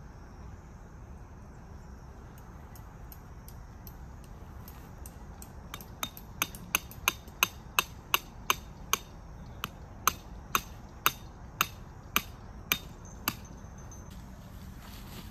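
Hammer driving a tent peg into the ground: a run of about seventeen sharp strikes starting about six seconds in, roughly two a second, spacing out a little toward the end.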